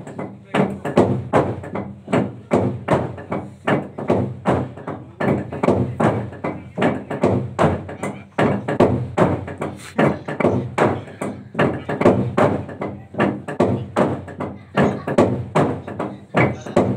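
A large hollowed-out log drum struck in unison by a row of players with hand-held wooden beaters: a fast, even rhythm of wooden knocks, about three a second.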